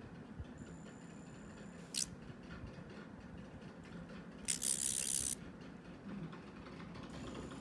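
40K ultrasonic cavitation probe running against water in a plastic tub: a faint high-pitched tone that stops and starts, a sharp click about two seconds in, and a short hiss of almost a second about halfway through.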